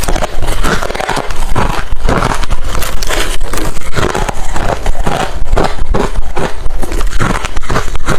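Close-up crunching of hard refrozen crushed ice being bitten and chewed, a dense run of loud crackling crunches.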